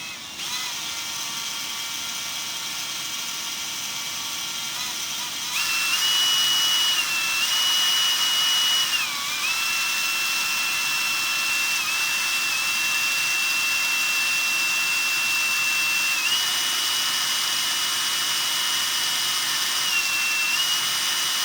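Power drill spinning a plastic bottle to wind fishing line off a reel: a steady motor whine that speeds up and gets louder about five and a half seconds in, dips briefly, then runs on with small shifts in pitch.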